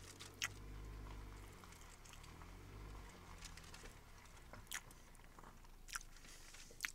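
Faint chewing and crunching of a grilled cheese sandwich, with a few sharp clicks, over a low steady hum.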